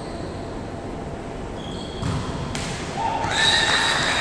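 Indoor volleyball play in a reverberant gym: a ball being struck and sneakers squeaking on the wooden court, busier and louder from about halfway through.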